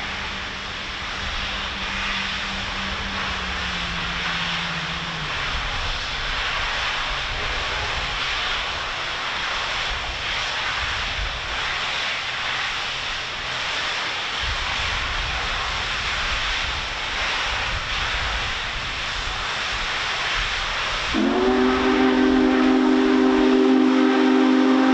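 Union Pacific Big Boy #4014 steam locomotive working across a steel truss bridge, a steady hiss and rumble of steam. Near the end its chime steam whistle sounds one long, loud blast, a chord of several notes.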